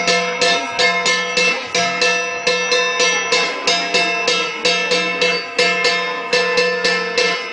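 Cordilleran gong ensemble: flat bronze gongs (gangsa) with a drum, struck in a steady, fast interlocking beat of about three strikes a second, the gong tones ringing on between strokes.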